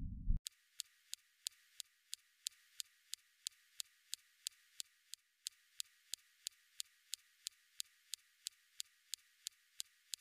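Perseverance rover's SuperCam laser zapping a rock target on Mars, recorded by the SuperCam microphone: about thirty sharp clicks, roughly three a second, some slightly louder than others. The differences in loudness between impacts carry information on the rock's hardness and any weathered coating.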